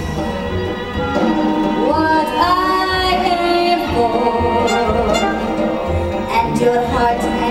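A woman singing a Broadway show tune with instrumental accompaniment; her voice slides up into long held notes.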